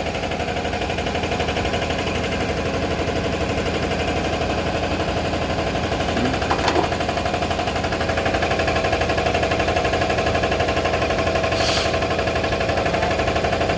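Toilet-paper rewinding machine running steadily during a test run: a fast, even mechanical rattle over a steady hum, with a short hiss near the end.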